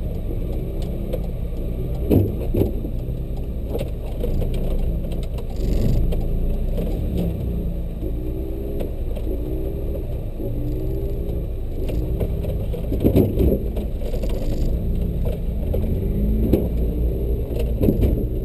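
Car engine idling, a steady low rumble with a faint warbling note repeating about once or twice a second, with scattered clicks and knocks from inside the open cabin.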